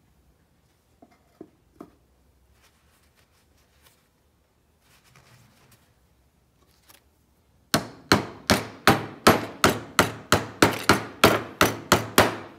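Faint handling clicks, then about eight seconds in a quick, even run of sharp taps, roughly three a second, about fifteen in all, with paint-mixing tools and cans on the bench.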